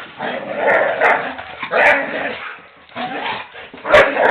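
Two dogs play-fighting, giving repeated bursts of barks and growls about once a second, with a few sharp knocks, the loudest about four seconds in.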